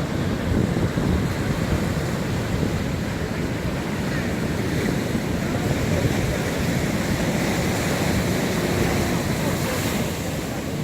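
Sea waves washing on the shore, with wind buffeting the microphone. A faint steady hum joins near the end.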